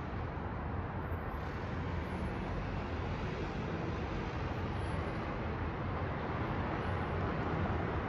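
City street traffic: a steady wash of car engines and tyres on the road, growing a little louder near the end as more cars pass through the intersection.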